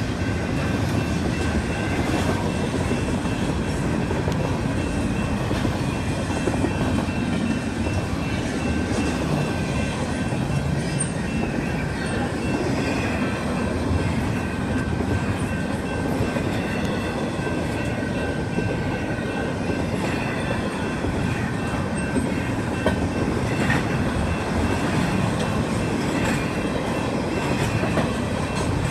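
Freight cars of a passing manifest freight train rolling by: a steady rumble of steel wheels on rail with clickety-clack over the joints, and a faint, steady high-pitched ringing from the wheels.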